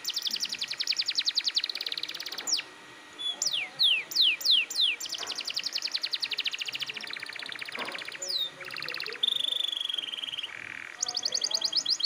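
Orange domestic canary singing a loud, unbroken song: long, very fast trills, runs of quick downward-sweeping notes, and near the end a held steady whistle followed by a short buzzy note before the trilling starts again.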